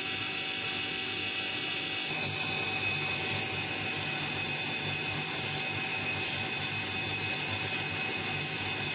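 CO2 laser engraving machine running while it raster-engraves a photo into MDF: a steady whirring hiss with high-pitched motor whine. A lower hum joins about two seconds in.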